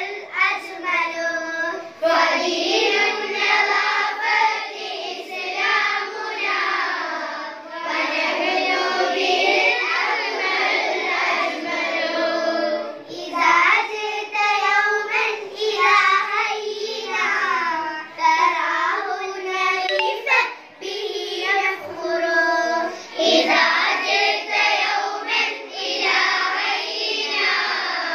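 A small group of girls singing a song together, unaccompanied.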